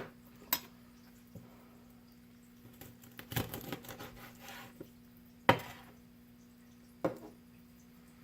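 Knife knocking on a cutting board while cutting up a raw chicken: a few sharp knocks, spaced seconds apart, with a cluster of lighter taps and scraping in the middle.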